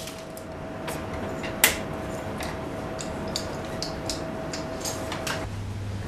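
Scattered light clicks and knocks over a faint steady tone, with one sharper click about a second and a half in; near the end the tone stops and a low hum takes over.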